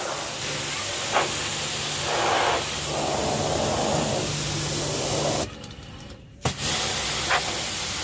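Btali 2200HPW commercial pressure washer spraying through a wheeled under-chassis cleaner: a steady high-pressure water hiss over the wet car underbody and paving, with the machine's low hum beneath. The spray drops away for about a second just past halfway, then starts again with a sharp burst.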